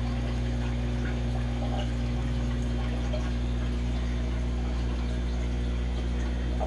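Aquarium filter running: a steady electrical hum with water trickling and splashing.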